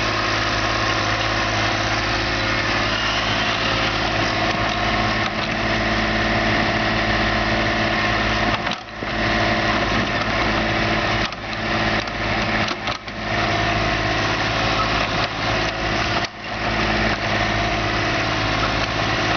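Small excavator's engine running steadily, with a few brief drops in level along the way.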